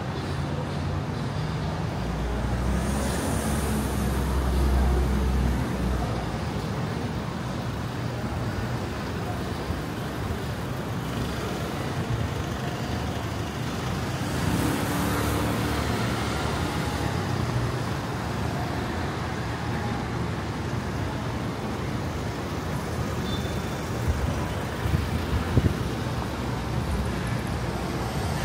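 City street traffic: cars and buses driving past in a steady wash of road noise. A heavy vehicle passes with a deep rumble a few seconds in, another vehicle passes about halfway, and a few short knocks sound near the end.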